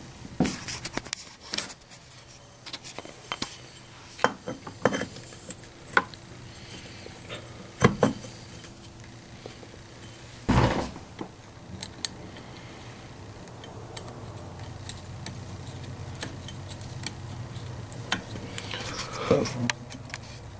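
Small metal parts and hand tools clinking, tapping and scraping while the flywheel and ignition parts of a Remington SL-11 A chainsaw are refitted by hand. There is one heavier knock about halfway through, over a steady low hum.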